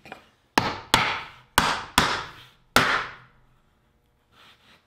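A mallet knocks five times on a scrap wood block laid across glued, biscuit-joined jatoba boards, tapping them flush during glue-up. The blows are sharp wooden knocks, coming in quick pairs in the first three seconds.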